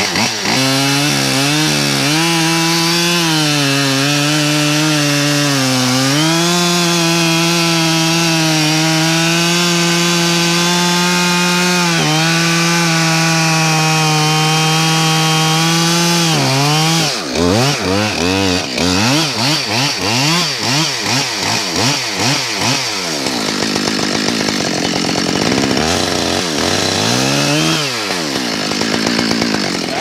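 Husqvarna chainsaw at full throttle cutting into a willow log, its pitch dipping briefly under load a couple of times. About seventeen seconds in it switches to quick, repeated revving up and down.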